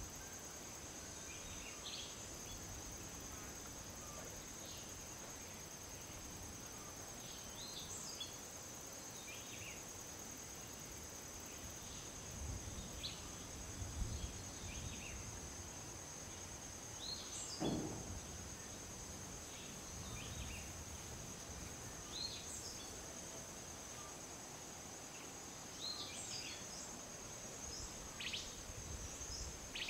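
Steady high-pitched insect drone with scattered short bird chirps, and a single thump a little over halfway through.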